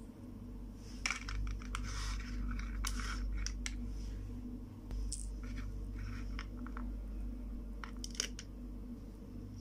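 Plastic toy-kitchen pieces clicking and scraping as they are handled: a toy knife and plastic corn cob knocking against a plastic cutting board. Short irregular clicks come thickest in the first few seconds and again near the end, over a steady low hum.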